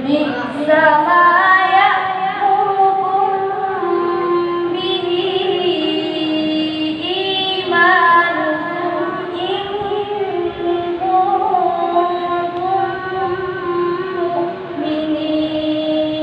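A female reciter chanting the Quran in the melodic qiro'ah style, holding long, ornamented notes that slide and step between pitches in near-unbroken phrases.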